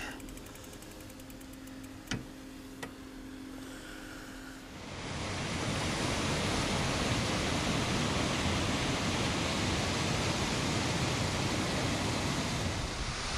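A low steady hum with two sharp knocks as the chairlift moves off from the base station, then, from about five seconds in, a steady loud rushing of a mountain stream and waterfall beneath the chairlift.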